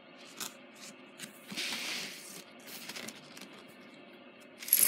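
A silver-tone metal necklace being handled on a mat: faint rustles and small clicks, a short scraping swish about two seconds in, and a sharp metallic clink near the end.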